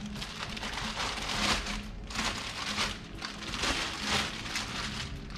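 Plastic bag crinkling in irregular surges as a car stereo head unit is handled and unwrapped from it.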